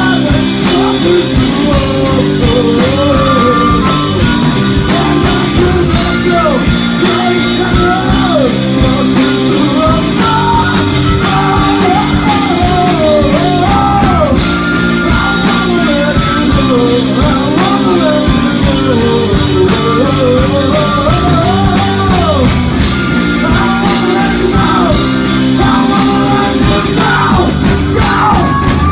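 A live rock band plays loud and steady: a distorted electric guitar and a drum kit, with a male lead vocal singing over them.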